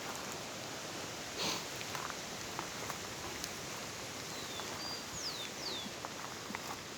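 Outdoor ambience with scattered footsteps and rustling underfoot, and a bird giving a few short falling chirps about two-thirds of the way through.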